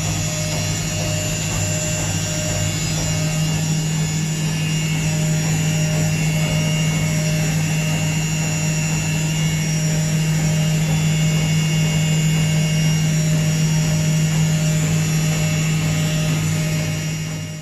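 Washing machine drum spinning fast on a cleaning cycle: a steady motor hum with a whine, which cuts off near the end.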